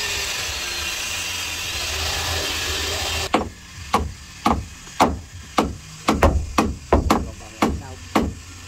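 A power tool runs steadily and stops suddenly about three seconds in. Then a hammer drives nails into the wooden hull planking and hard timber frame of a fishing boat, with sharp blows about two a second.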